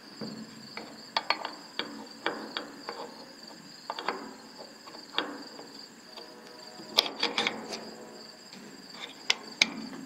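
Metal parts of a telescope guide-scope dovetail bar and its quick-release base clicking and knocking as they are fitted together and set down: a scatter of sharp clicks, with a quick cluster about seven seconds in. A steady high-pitched tone runs underneath.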